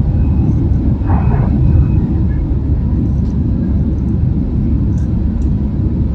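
Steady low rumble of an airliner heard from inside the cabin during and just after take-off: engine and airflow noise.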